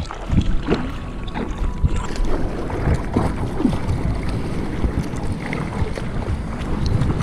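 Water splashing and sloshing against a surfboard as it is hand-paddled through choppy water, in irregular strokes, with wind rumbling on the microphone.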